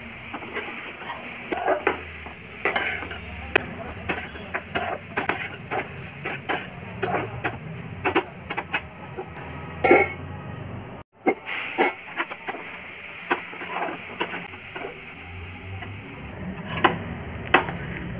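Metal spatula scraping and knocking against a steel frying pan while cauliflower and potato pieces are stirred, in quick irregular clinks several times a second, with a louder metallic clank about ten seconds in as the steel lid is handled.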